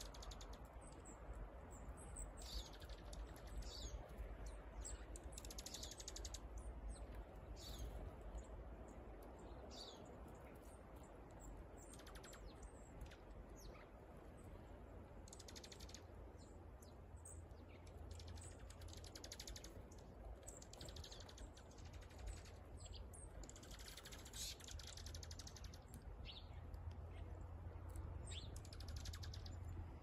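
Small songbirds foraging in a flock, giving scattered high, short chirps and quick rattling twitters, over a faint low steady rumble.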